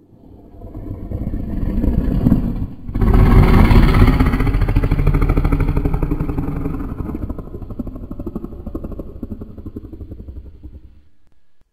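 Dragon growl sound effect: a rough, fast-pulsing growl that builds over about three seconds, breaks off for a moment, then comes back at its loudest and slowly fades away.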